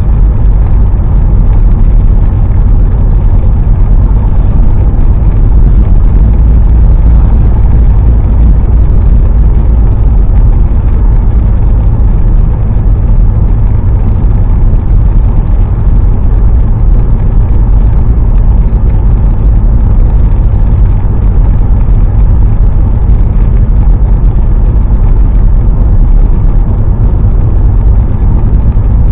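Steady, loud low rumble of a car driving on a wet road, heard inside the cabin: engine and tyre noise.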